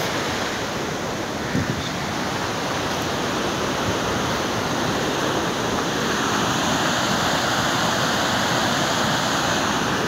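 Waterfall swollen by heavy rain: a steady rush of fast, strong floodwater, slowly growing a little louder.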